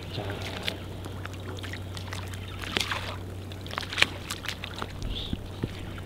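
Choppy sea water sloshing and splashing against the boats' hulls, with a steady low hum underneath.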